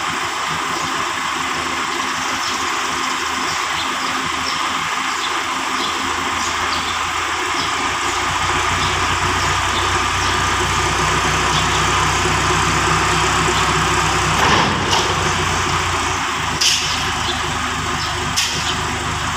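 Diesel farm tractor engine running, its low note growing stronger from about seven seconds in, over a steady hiss. A brief louder burst comes about fourteen seconds in, then two short knocks.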